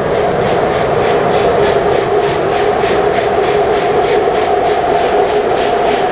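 Steam locomotive working hard under steam, its exhaust beating in an even rhythm of about four to five chuffs a second over a steady droning tone.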